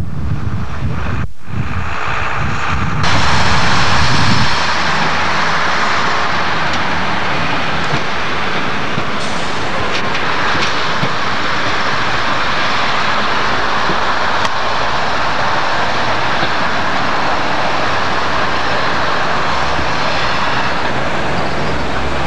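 British Rail first-generation diesel multiple unit running along the line as it pulls away, a steady engine drone mixed with rushing wind noise on the microphone. It gets louder for a second or two about three seconds in.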